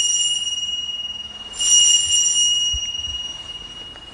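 Small altar bell rung at the elevation of the chalice during the consecration. It is still ringing from a stroke just before, is struck again about one and a half seconds in, and rings away to nothing near the end.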